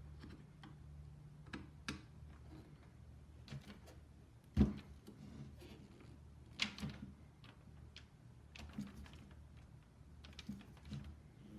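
Screwdriver and pliers working a stainless steel screw and nut tight through a polycarbonate paddle on a fiberglass rod: scattered small clicks and taps of metal tools on the hardware, the loudest a sharp knock about four and a half seconds in and another near seven seconds.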